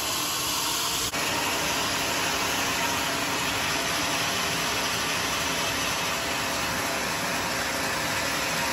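Sawmill saw and motor running with a steady, dense hiss, first while cutting teak and then running on without a pause; the sound breaks off briefly about a second in.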